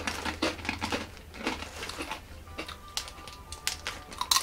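Crunching on small, hard ready salted potato-hoop crisps, irregular crackly bites, with the plastic crisp packet crinkling in the hands.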